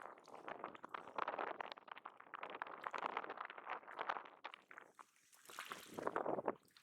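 Small waves lapping and splashing irregularly at the water's edge, with a short lull about five seconds in.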